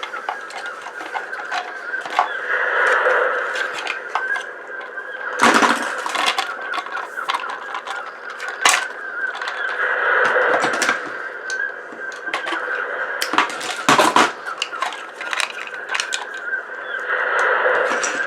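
An ice maker's plastic and metal parts being worked apart by hand: squeaking and cracking, with several sharp clicks and knocks.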